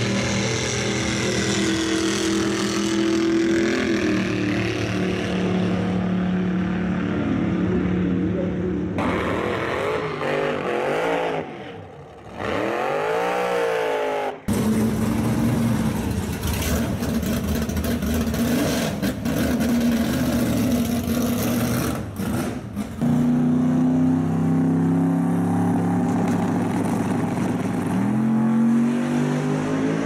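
Drag-racing car engines running loud. About halfway through they rev up and down in sweeps, then come in suddenly loud and run steadily, stepping up in pitch twice near the end.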